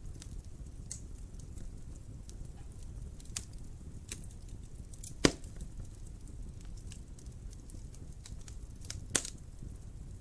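Wood fire burning in a fireplace: a low steady rumble of flames under scattered small crackles, with two sharp, louder pops, about five seconds in and again near the end.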